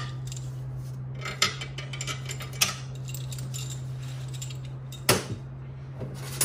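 Steel ARP case bolts and washers clinking against a Subaru EJ257 aluminium engine block as they are set into the case, a few sharp metallic clicks, the loudest about five seconds in, over a steady low hum.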